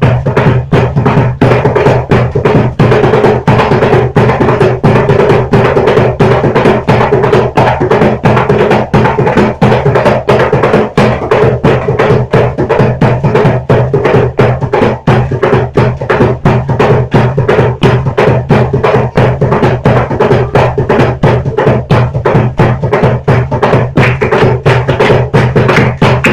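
Percussion music: drums struck in a fast, even beat that keeps going without a break, over a steady low hum.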